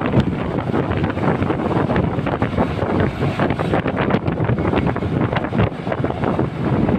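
Wind buffeting the microphone on a moving motorcycle, a loud, gusty rush with constant fluttering over the rumble of the ride.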